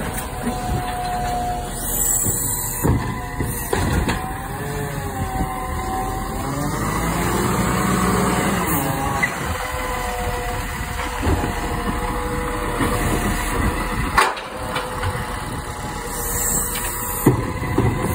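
Iveco Stralis garbage truck's diesel engine running while its automated side-loader arm tips a wheelie bin and lowers it back to the kerb. A hydraulic whine rises and falls in pitch, with clunks from the arm and bin and a sharp knock about 14 seconds in.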